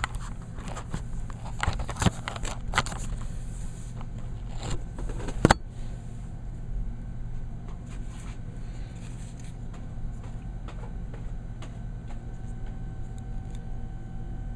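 Handling noise: a run of clicks, knocks and rustles, with one sharp knock about five and a half seconds in, then quieter with a steady low hum underneath.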